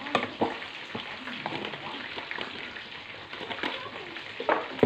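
Metal spoon clinking and scraping against a pot as soy sauce is spooned onto raw chicken giblets, a few sharp clicks over a steady hiss.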